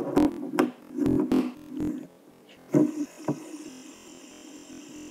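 A few knocks and taps on a wooden table as a fidget spinner is set down and flicked, then, from about three seconds in, the steady faint whir of the spinner's ball bearing as it spins.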